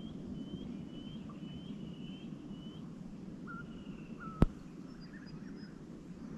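A bird calling a run of about six short, evenly repeated chirps over the first three seconds, followed by a couple of lower notes, over a steady low background rumble. A single sharp click about four and a half seconds in is the loudest sound.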